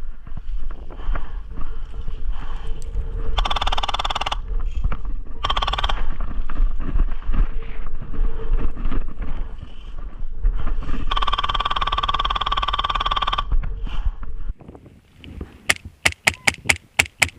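Wind buffeting the microphone as a steady low rumble, broken by three buzzy bursts of full-auto fire from electric airsoft guns, the last lasting about two seconds. Near the end the rumble drops away and a quick run of sharp, evenly spaced cracks of airsoft shots follows.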